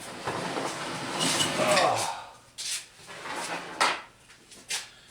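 A scraping, rubbing sound for about two seconds, then a few separate sharp knocks, like hard objects being dragged and set down during shop clearing.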